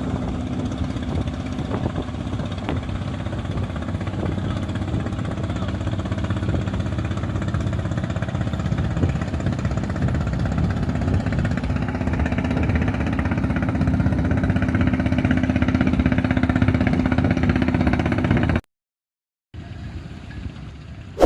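Fishing boat engine running steadily, growing slightly louder, then cutting off abruptly near the end.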